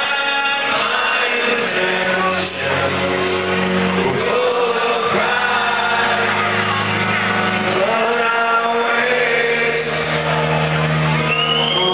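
Live rock band music: a male lead vocalist singing a slow melody over acoustic guitar accompaniment, with long held notes.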